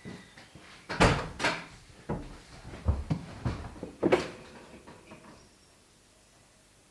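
A series of about seven sharp knocks and clunks, like hard objects being handled or a door or panel being shut, spread over the first four seconds or so.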